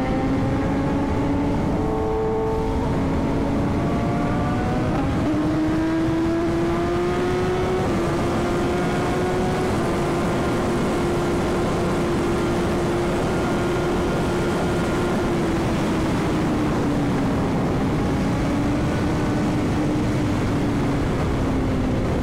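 BMW S1000RR sport motorcycle's inline-four engine pulling at highway speed under heavy wind rush. The revs climb gradually over the first several seconds, hold steady, then ease off near the end.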